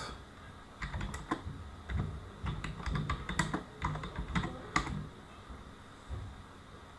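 Typing a short search phrase on a computer keyboard: a quick run of key clicks lasting about four seconds, then a single soft low thump near the end.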